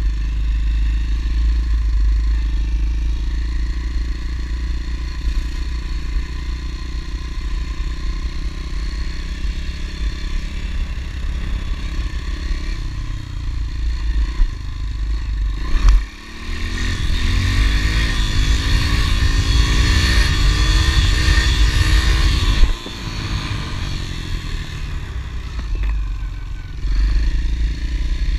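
Honda CRF110 pit bike's small air-cooled single-cylinder four-stroke engine running as it is ridden along a road. A little past halfway the throttle is opened and the engine note climbs for about six seconds, then drops suddenly as the throttle is rolled off.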